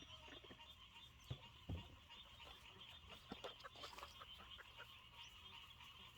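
Near silence: a faint, steady high-pitched trilling chorus, with a few soft ticks and two low thumps about one and a half seconds in.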